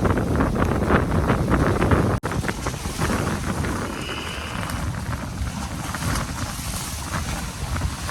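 Strong, gusty wind from an approaching hurricane buffeting the microphone, a dense low rumble. There is a brief sharp break a little over two seconds in, and it settles slightly lower afterwards.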